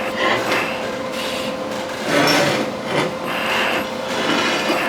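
Arc welder laying short passes along a seam to smooth out the weld, a few bursts of crackling arc over a steady machine hum.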